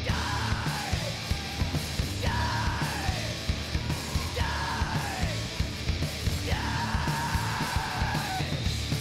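Loud rock song with shouted vocals over driving drums and bass. A held, yelled line comes about every two seconds, each one sliding down in pitch as it ends.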